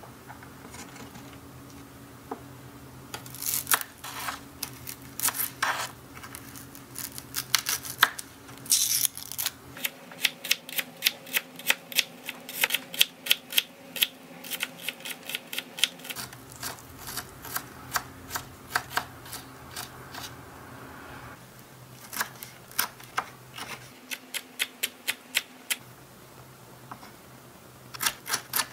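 A tiny knife chopping on a small wooden cutting board: sharp taps in quick runs of several a second, with pauses between, as miniature vegetables are sliced. A faint steady hum runs underneath.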